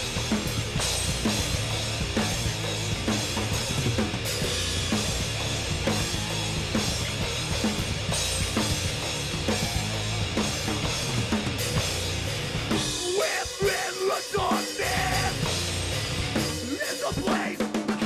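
Metal band playing the instrumental intro of a song live, with the drum kit's kick and snare driving the full band. About thirteen seconds in, the drums and low end drop out for a moment, leaving a pitched guitar line. The full band comes back in, dips briefly again, and returns near the end.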